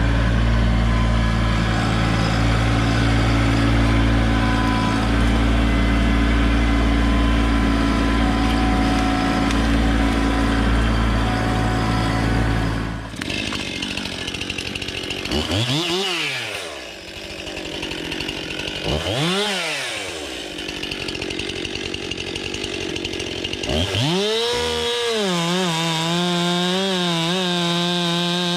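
A steady low engine drone runs for the first half, then stops abruptly. A STIHL MS 261 two-stroke chainsaw follows, revved up and down twice, then held at high revs with a wavering pitch as it cuts through wood near the end.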